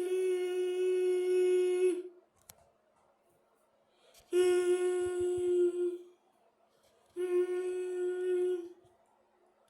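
A person's voice imitating a train horn: a steady hummed tone at one pitch, held in three long blasts with pauses between them. The first blast is already sounding and stops about two seconds in, and the other two follow after gaps of a couple of seconds and a second.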